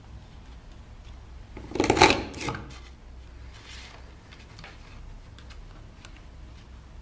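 A paper border punch pressed down once, a short loud crunch of it cutting through card about two seconds in. Around it, soft rustles and small clicks of the card being slid and lined up under the punch.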